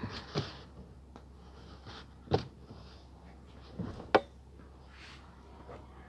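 A dark knitted garment being handled close to the microphone: soft rustling of fabric, with three sharp knocks about two seconds apart, the last the loudest.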